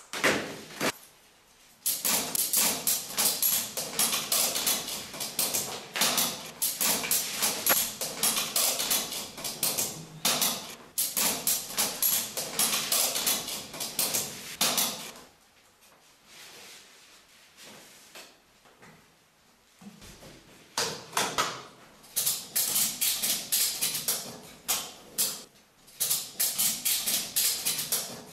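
Green fabric straps being pulled, threaded and fastened around a clear plastic tube: dense rapid clicking and rustling in two long stretches, with a pause of several seconds in the middle.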